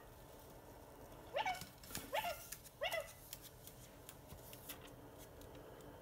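Indian ringneck parakeet giving three short calls that rise in pitch, about two-thirds of a second apart, with a few faint clicks between them.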